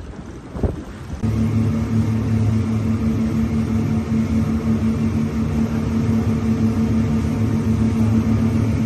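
Boat engine running steadily at constant speed with a low, even hum, starting abruptly about a second in after a single knock.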